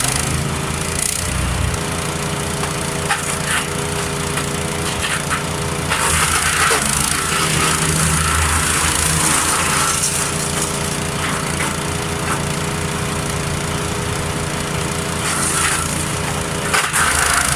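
Engine-driven wood chipper running steadily, with louder crackling stretches as branches are fed in and chipped, from about six seconds in for a few seconds and again near the end.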